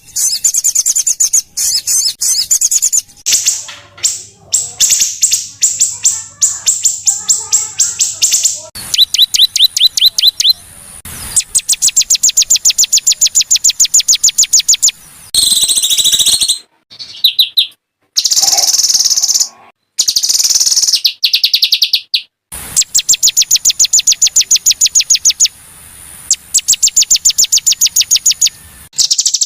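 Small songbirds singing in harsh, rapid-fire trills: fast strings of sharp, high repeated notes, the 'tembakan kasar' style. The phrases come in short stretches that switch abruptly from one to the next, as in an edited song-tutoring mix.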